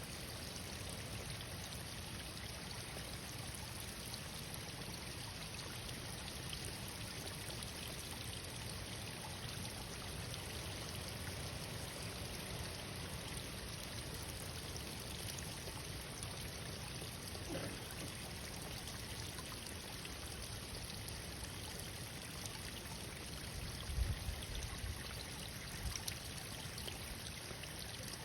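Stream water running in a steady, even rush. A few soft low thumps come near the end.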